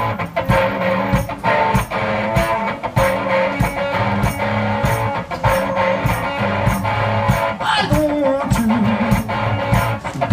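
One-man band playing a blues groove on guitar, with a steady beat of drum hits under it.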